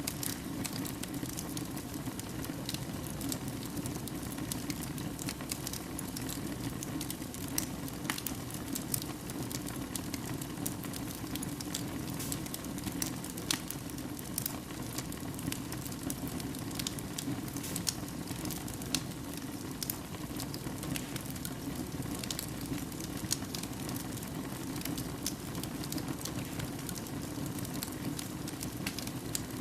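Wood fire burning in a fireplace: a steady low hiss of the flames with frequent sharp crackles and pops at irregular intervals.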